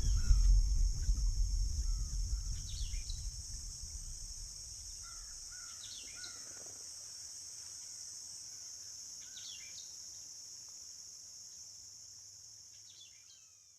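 Nature ambience: a steady high insect drone with short bird-like chirps every few seconds. A low rumble dies away over the first few seconds, and the whole ambience fades out near the end.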